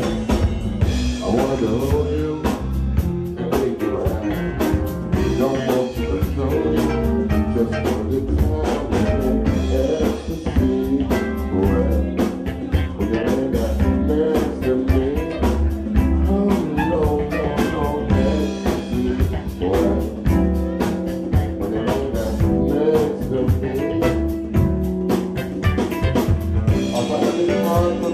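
Live band playing a groove: electric bass, drum kit, congas and keyboard, with a steady drum beat.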